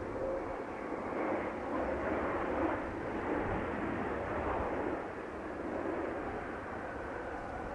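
Jet engines of a Boeing 777 airliner on the runway: a steady, noisy rumble that swells through the middle and eases off a little after about five seconds.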